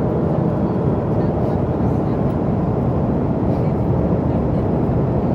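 Steady airliner cabin noise: an even, unbroken rush sitting mostly in the low and middle range.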